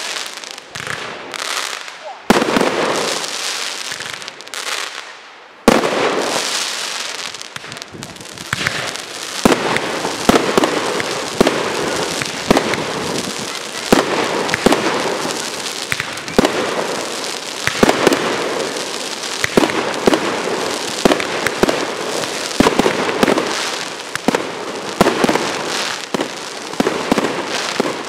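Aerial fireworks display: shells bursting, with a few separate bursts and their fading crackle in the first six seconds, then from about ten seconds in a dense, continuous run of bangs and pops over a steady fizzing hiss.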